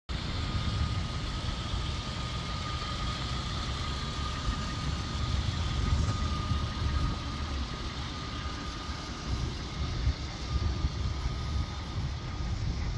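Toyota Land Cruiser 200-series V8 engine idling steadily, a low rumble with a thin, steady high whine over it.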